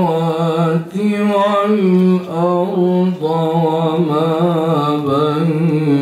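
A man's voice reciting the Quran in slow, melodic tajwid style, drawing out long held notes that waver and ornament in pitch, one phrase running into the next.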